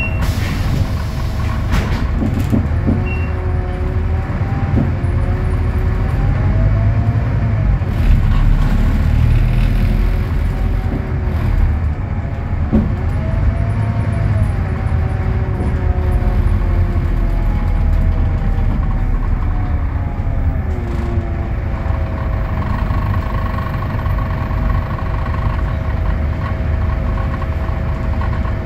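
Scania DC09 five-cylinder diesel of an articulated city bus idling while the bus stands still, heard from inside the cabin as a steady low rumble with a whine. Through the middle stretch, higher whines rise and fall several times, and there is a brief hiss near the start.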